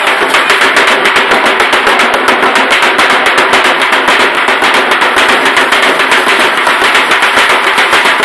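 Ankle rattles on dancers' legs shaking as they stamp: a loud, dense rattle pulsing in a quick, even beat.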